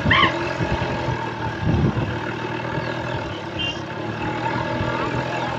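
Motor vehicle engine running steadily while moving along a road, with a brief high-pitched sound just after the start.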